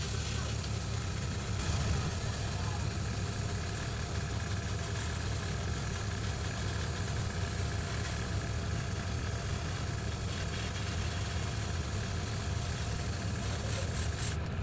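A steady, even mechanical hum with a strong low rumble, unchanging throughout.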